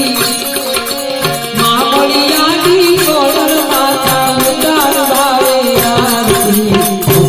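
Gujarati devotional aarti: a voice singing an ornamented, wavering melody over steady held harmonium tones, with drums keeping a regular beat.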